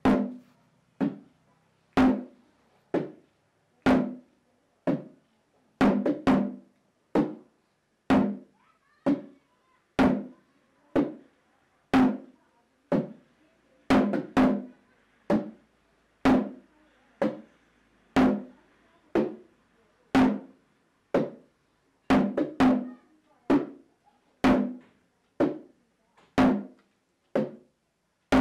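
Drum strokes in a slow, steady rhythm, about one beat a second with some beats doubled, each stroke sharp and quickly dying away.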